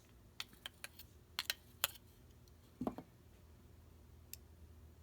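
Steel screwdriver tip clicking against a Husky magnetizer block as it is pushed in and drawn through to magnetize it: several light, sharp clicks in the first two seconds, a brief low sound near three seconds in, and one more click near the end.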